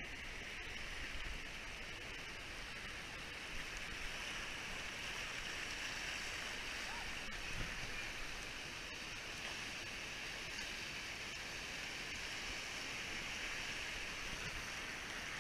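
Creek water rushing over rocky rapids, a steady rush as a tube rides down the creek.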